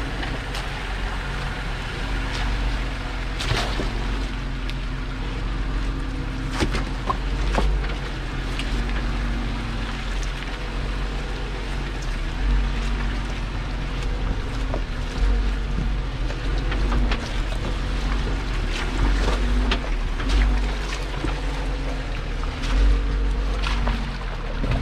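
Jeep Wrangler JL Rubicon's V6 engine running at low revs as it crawls over rocks and through muddy puddles in second gear low range, with tyres knocking and crunching on stones now and then. Heavy wind noise on the microphone.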